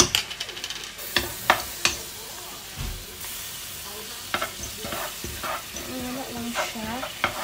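Egg noodles sizzling in a hot wok while being stir-fried with honey: a steady sizzle with a utensil knocking against the pan now and then.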